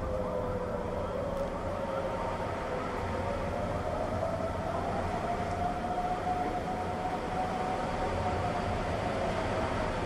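Several distant outdoor warning sirens sounding at once, their tones overlapping and slowly drifting up and down past each other, over a low steady rumble.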